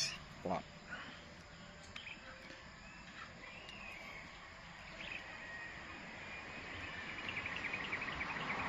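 Birds chirping in the background, busier near the end. There is a sharp click at the start and a knock about half a second in as the brush cutter's blade head is handled.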